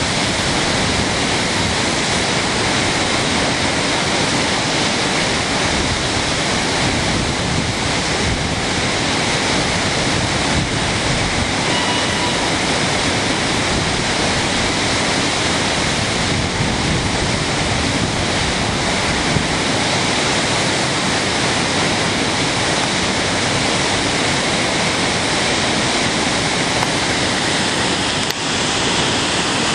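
Flash-flood waterfall in a desert canyon, floodwater pouring over a rock ledge into a pool: a loud, steady rush of water, flowing powerfully.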